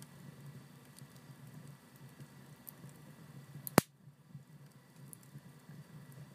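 Wood and paper fire burning in a stove's firebox, crackling: a low steady rumble with faint scattered ticks, and one loud sharp crack just under four seconds in.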